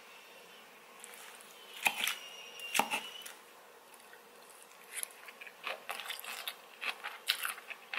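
Someone eating salad: a fork or spoon clinks twice against the dish, with a brief ringing tone, then a run of small crisp crunches from chewing.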